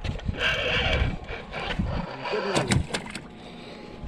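Penn Spinfisher spinning reel cranked under the load of a hooked shark, its gears giving a steady whir for about the first two seconds. A few clicks and knocks of handling follow.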